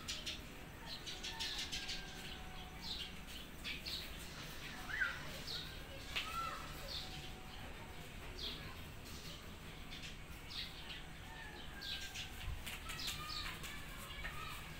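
Small birds chirping: short high-pitched chirps, many of them falling in pitch, come irregularly about once a second, with the loudest a little under halfway through.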